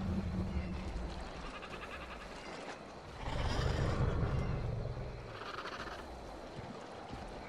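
Animal calls over a low rumbling ambience, the loudest lasting about two seconds from about three seconds in, followed by a shorter call near six seconds.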